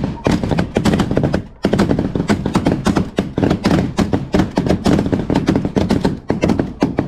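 Handling noise: fabric of camouflage clothing rubbing and scraping against the camera's microphone, a loud, rapid crackling rustle with a brief lull about a second and a half in.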